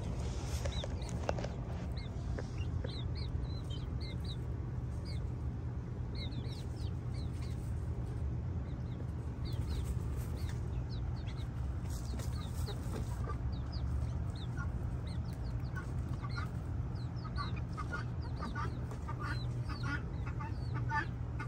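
Chickens clucking while they forage, with many short, high, falling chirps throughout and a run of lower, quicker clucks near the end, over a steady low background rumble.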